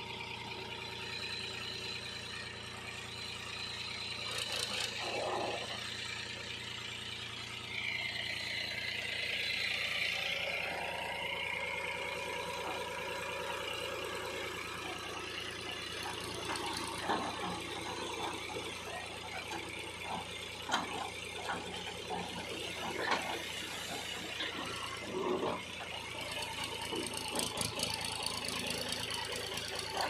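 Powertrac 434 DS Plus tractor's diesel engine running steadily while its hydraulic tipping trailer tips up and dumps a load of earth. Scattered thumps and rattles of falling soil come through the second half.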